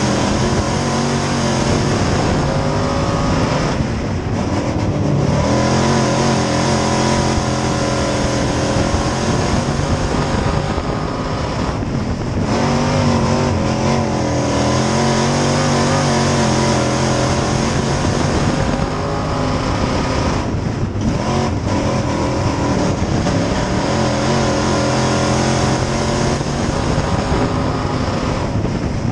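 Dirt-track sport modified's V8 race engine, heard from inside the cockpit, running hard at racing speed. Its pitch rises and falls, and three times it briefly drops off and climbs again, as the throttle lifts for the turns.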